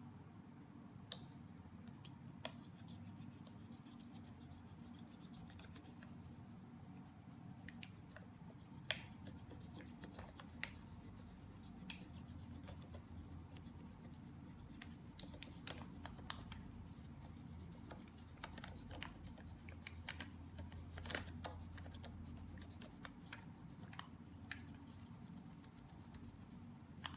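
Faint scratching, rubbing and scattered sharp clicks of hands handling a Kinder Joy toy capsule and its small plastic parts, over a low steady hum.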